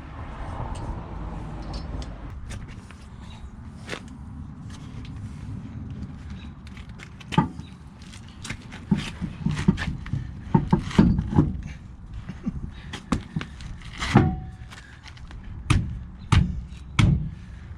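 Irregular knocks and clunks over a steady low rumble, coming thick and fast in the second half.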